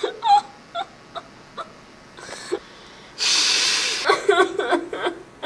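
A person sobbing: a few short sniffles, a long loud breath about three seconds in, then short wavering whimpering cries near the end.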